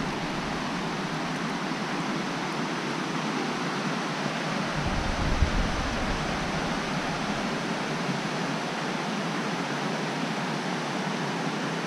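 Steady rush of the Bear River cascading over broken rocks and falling into pools at Mother Walker Falls, heard from above the gorge. A brief low rumble comes about five seconds in.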